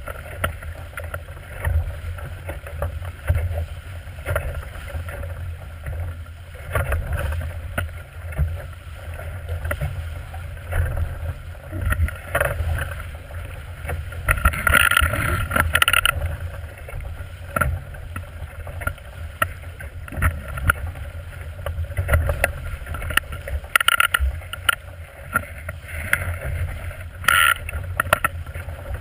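Small plywood sailboat (a Super Skipjack) heeled over and sailing fast through chop: water rushing and splashing along the hull, with wind rumbling on the microphone. Louder surges of spray come about halfway through and twice near the end.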